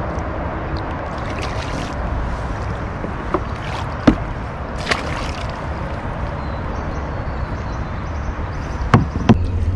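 Water sloshing and splashing beside a kayak as a hooked Australian bass is scooped into a landing net, with a few sharp knocks, one about four seconds in, one a second later and two close together near the end.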